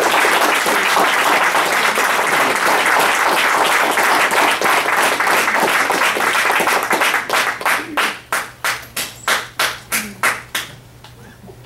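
Audience applause, dense at first, thinning out after about seven seconds into a dozen or so separate claps that stop about ten and a half seconds in.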